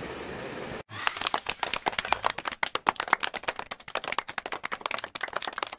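Faint room noise, cut off about a second in, then a dense, irregular run of sharp hand claps like a short applause sound effect.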